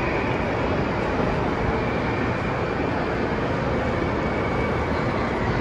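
Steady background din of a large indoor amusement park hall, with a faint high tone that comes and goes.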